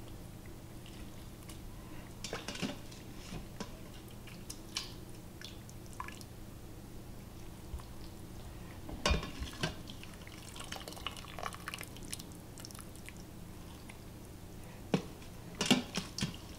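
Chunks of cooked beef being lifted with a plastic slotted spoon out of their cooking liquid in an Instant Pot and dropped into a glass bowl: dripping and splashing liquid with scattered clinks and taps, loudest a little past the middle and near the end.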